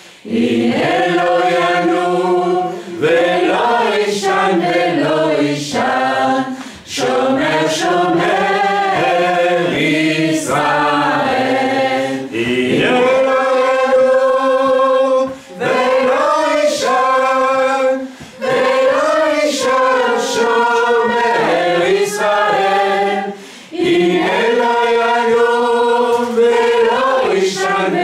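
A group of voices singing a slow worship song in long held phrases, with short breaks between phrases.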